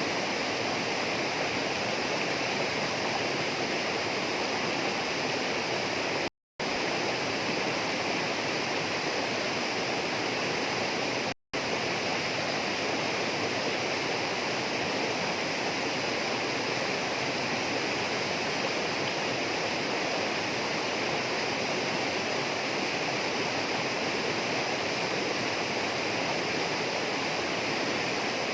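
Steady rush of flowing water, as from a rainforest stream or waterfall, unchanging throughout. It cuts out to silence for a split second twice, about six and eleven seconds in.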